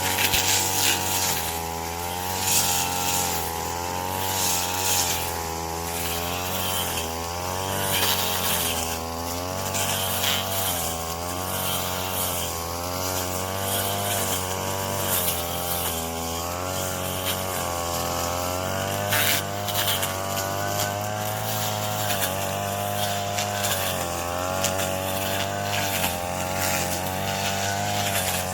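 Small engine of a Yamaha-powered cutting machine running continuously, its speed rising and falling as it bites into corn stalks, with scattered sharp hissing crackles from the cutting.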